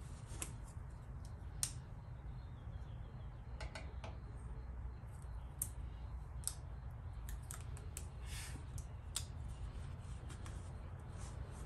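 Scattered small clicks and crinkles of a paper decal backing being picked at and peeled from the decal by hand, with one slightly longer scrape about two thirds of the way through, over a steady low hum.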